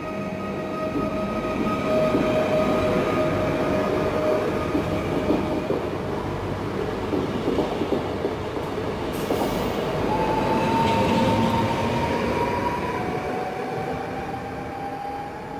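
PESA Elf (EN76) electric multiple unit running close past along the platform: a loud rumble of wheels on rail with a steady whine from its traction motors. About nine or ten seconds in, another Elf unit approaches with a higher whine that slowly rises in pitch.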